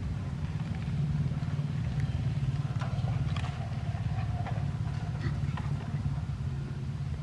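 Dogs scuffling and wrestling in dry grass and straw, with a few short rustles and snaps about halfway through, over a steady low rumble.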